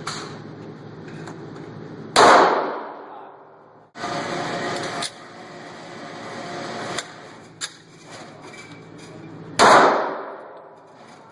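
Two pistol shots from a Smith & Wesson M&P 40 in .40 S&W, about seven seconds apart, each with a long echoing tail. Between them there is a second-long burst of noise and a few small clicks.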